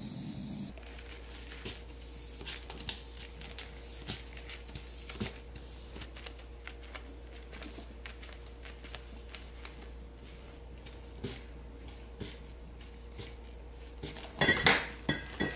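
Scattered light taps and clicks from gloved hands handling a blown sugar ball and its tube, over a steady low hum. Near the end comes a short, louder burst of knocks and clatter.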